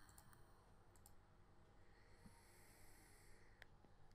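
Near silence with a few faint computer mouse clicks, as bet buttons are clicked.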